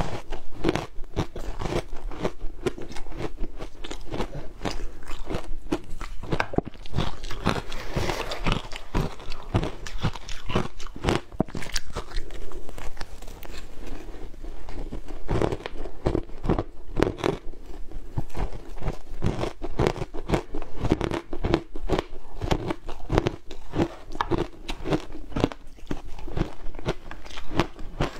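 Mouthfuls of frozen shaved ice being bitten and chewed, a quick unbroken run of crisp crunches.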